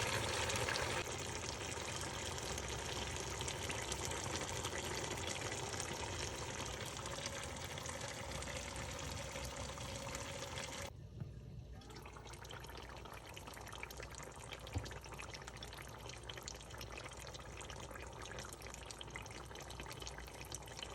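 Steady simmering hiss of a pot of chicken yassa (fried chicken, potatoes and seasoned onions in oil) cooking slowly on the stove. It steps down a little in level about a second in and again about eleven seconds in.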